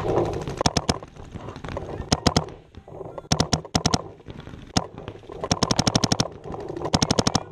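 Electronic paintball marker, an Empire Axe Pro, firing several quick strings of sharp pops. The fastest string comes a little past the middle, at about ten shots a second.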